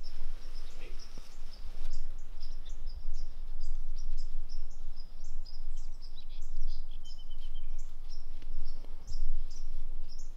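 Small songbirds chirping in short, high, irregular notes, with a brief rapid trill about seven seconds in, over a steady low rumble.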